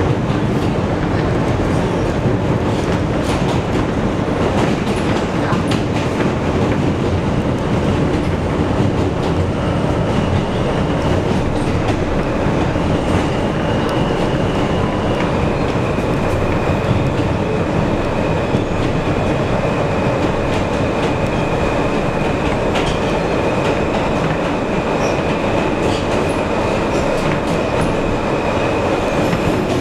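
NYC subway train running through a tunnel, heard inside the front car: a steady rumble of wheels on rail with clicks from the track. About ten seconds in, a faint high steady tone comes in and holds.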